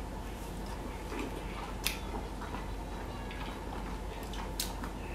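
Quiet chewing of a piece of boiled bamboo shoot, with two faint clicks, about two seconds in and near the end.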